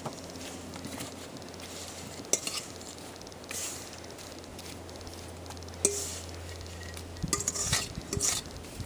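A metal utensil scraping and clinking against a metal mixing bowl as sugar-coated apple slices are spooned out into a pie crust, with scattered light clinks that cluster near the end, over a faint steady low hum.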